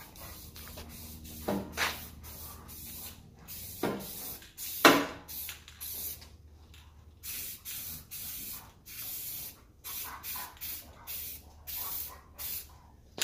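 Aerosol can of black spray paint hissing in many short bursts as it is sprayed onto the engine-bay frame. A few sharp knocks come in the first half, the loudest about five seconds in.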